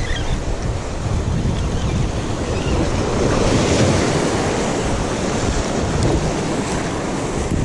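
Ocean surf surging and breaking against the rocks of a jetty, with wind buffeting the microphone. A wave swells louder about three seconds in.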